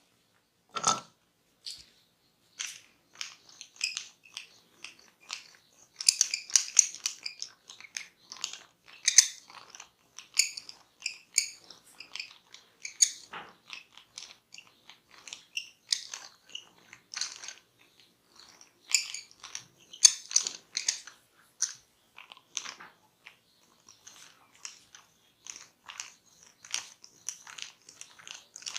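Barber's hands rubbing and scratching over hair and skin close to the microphone: a dense, irregular run of short crackling scratches.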